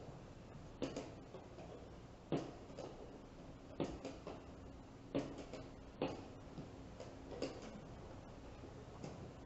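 Sharp clicks and knocks of blitz chess play: plastic pieces set down on a board and chess clock buttons pressed, coming irregularly about once every second or so.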